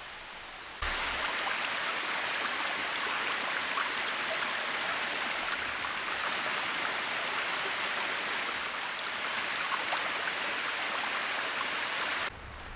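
Small waterfall splashing over rock: a steady rush of falling water. It cuts in abruptly about a second in and cuts off just before the end.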